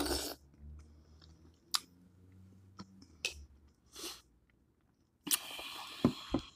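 Close-up eating sounds from a seafood boil of shrimp and mussels in sauce: wet chewing and smacking in short separate bursts, then a longer, louder noisy stretch with a couple of sharp clicks about five seconds in.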